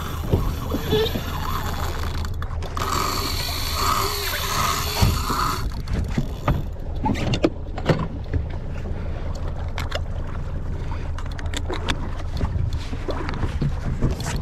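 Fishing reel and rod handling clicks and knocks during a fight with a large bonito or tuna, over the steady low hum of a small boat at sea. The clicks grow more frequent about halfway through.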